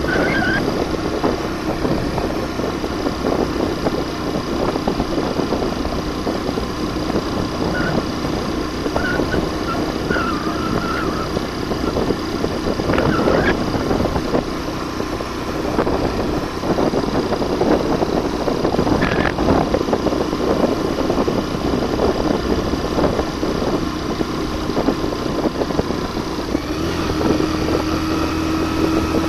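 Suzuki GN125's single-cylinder four-stroke engine running under load as the motorcycle climbs a rough dirt track carrying a passenger, with the bike jolting and rattling over the ground. Near the end the engine settles into a steady note.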